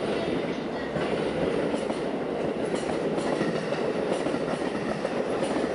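Super View Odoriko 251-series electric train rolling past as it pulls out, a steady rumble of wheels on rail with irregular clacks over the joints.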